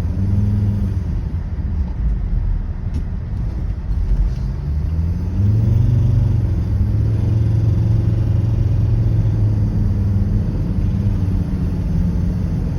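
Volvo XC90 2.4D's five-cylinder turbodiesel driving under way: the engine note rises as the car accelerates about four seconds in, holds steady, then eases off near the end as the throttle is lifted. The owner complains of a whistle, howl and air-suction noise from it when accelerating and lifting off.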